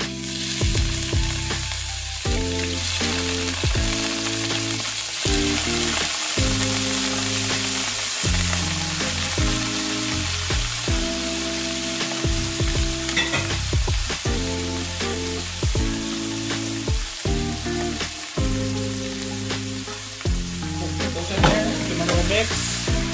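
Shell-on shrimp sizzling as they fry in hot olive oil in a stainless steel sauté pan. Near the end a spatula stirs and scrapes them around the pan.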